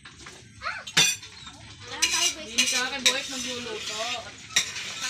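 Dishes and cutlery clinking and clattering, with sharp clinks about a second in and again near the end.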